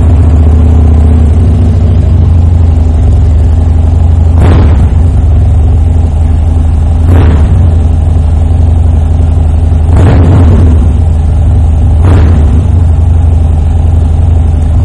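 2016 Harley-Davidson Dyna Street Bob's 103 cubic inch air-cooled V-twin, stage 1 tuned, running through a Vance & Hines Competition Series 2-into-1 exhaust: a loud, steady idle broken by four short blips of the throttle, two to three seconds apart.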